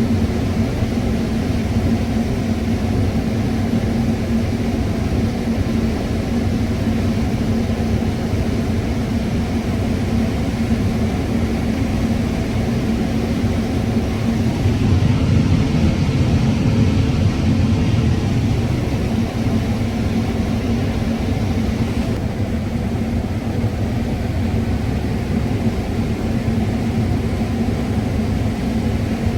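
John Deere combine running while harvesting corn, heard from inside the cab: a steady drone with a low hum, swelling a little louder about halfway through.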